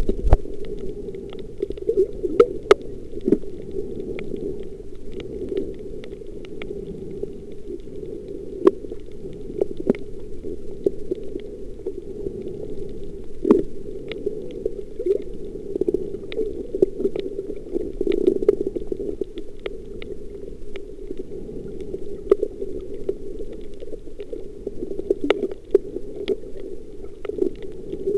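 Muffled underwater noise picked up by a camera under the sea surface while snorkelling, a steady low rumble with irregular sharp clicks and pops scattered through it.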